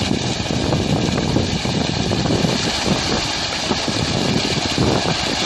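Continuous splashing and churning of water as a school of piranhas thrash at the surface, feeding on meat.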